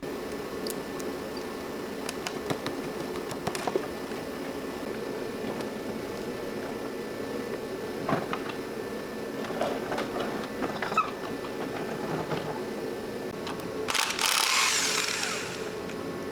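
Steady low mechanical hum with scattered clicks and clinks of tools on metal, and a brief burst from a power tool about fourteen seconds in.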